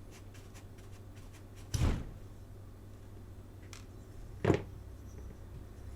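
Two short knocks, the first just under two seconds in and a sharper one about four and a half seconds in, with a few faint clicks: small tools and die-cast toy parts handled on a workbench. A steady low hum runs underneath.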